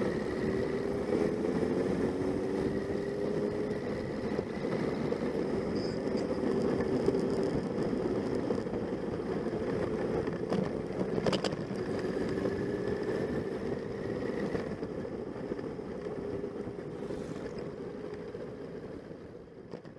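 Motorcycle engine running under way, heard from an onboard camera over wind and road noise, its pitch rising twice as it pulls through the gears. A sharp click about eleven seconds in, and the sound fades out near the end.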